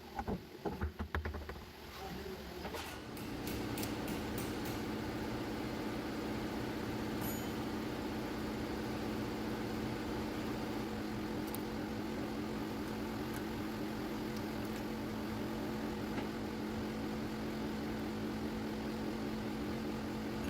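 A few knocks and clanks, then from about three seconds in a steady mechanical hum with a constant tone that runs on unchanged.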